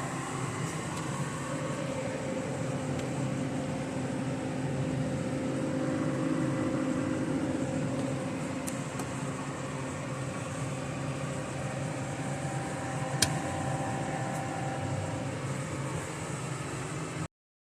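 Steady engine and road noise from a vehicle being driven, with a sharp click about thirteen seconds in. The sound cuts off abruptly near the end.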